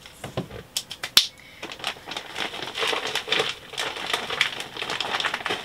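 Plastic bag of potting mix crinkling as the soil is poured out of it into a plastic pot, with a sharp click about a second in.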